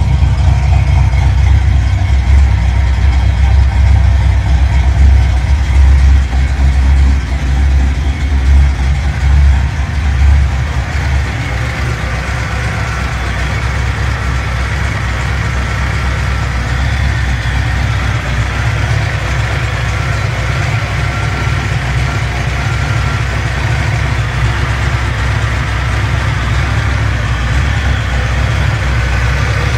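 Modified 1988 Mustang GT's 306 cu in small-block Ford V8, fitted with a Trick Flow cam, long-tube headers and Mac pro-dump mufflers, running at idle on a tune that still needs professional work. The sound is heavy and uneven for the first ten seconds or so, then settles steadier and slightly quieter from about eleven seconds in.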